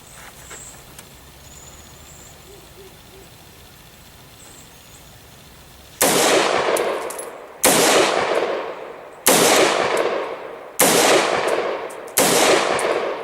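Five gunshots, evenly spaced about a second and a half apart, each followed by a long fading echo. They begin about six seconds in, after quiet outdoor background.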